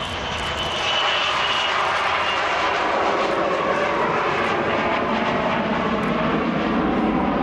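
Bombardier Global Express-family business jet's two rear-mounted turbofans at takeoff power as it lifts off and climbs away: a loud, steady rushing jet noise that grows louder about a second in, with a faint high whine fading out in the first two seconds.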